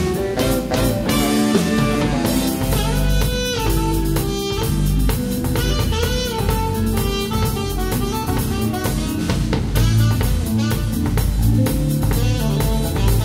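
Live band playing: a horn section of saxophones and trumpet carries the melody over a drum kit's steady beat, with electric guitar and bass.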